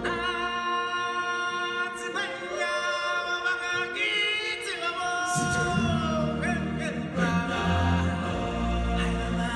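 Stage-show music: a choir singing long held notes, with a strong low bass accompaniment coming in about halfway through.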